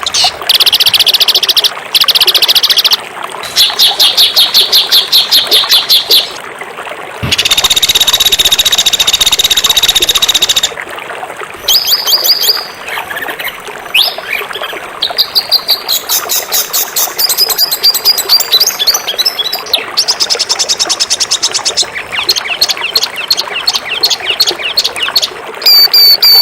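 Songbirds singing fast, harsh, rapid-fire trills and chirps, a 'tembakan' bird-song tutoring recording. Different birds' phrases follow one another with abrupt changes every second or few, over a steady hiss.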